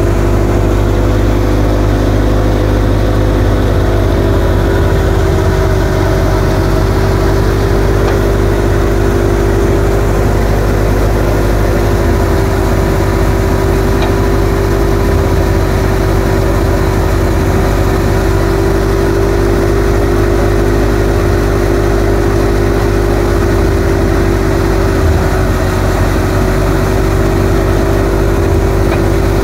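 Tractor-driven chickpea (gram) thresher running under load as chickpea plants are fed into it, together with the tractor engine driving it: a loud, steady machine hum that stays even throughout.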